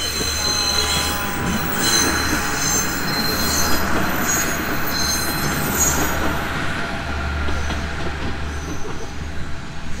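Diesel railcar passing over a level crossing: its engine drones steadily underneath while the wheels squeal high on the rails for the first six seconds or so.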